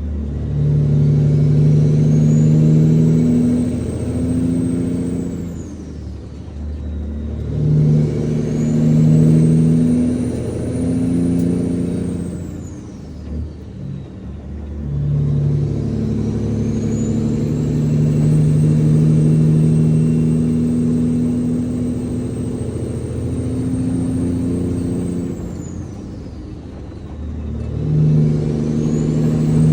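Semi truck's turbo diesel engine pulling through the gears. A turbo whistle rises and holds while it pulls, then falls away at each shift, about three times, with a brief dip in the engine sound at each shift.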